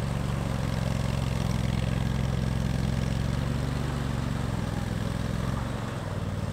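Argo 6x6 amphibious vehicle's engine running steadily as the tracked machine swims across a fast-flowing stream, its pitch dropping slightly about two-thirds of the way through. The tracks push it poorly in the current.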